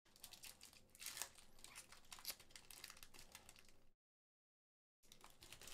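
A foil trading-card booster pack wrapper crinkling and tearing as it is opened, a dense run of quick crackles for about four seconds, then a short break and more crinkling.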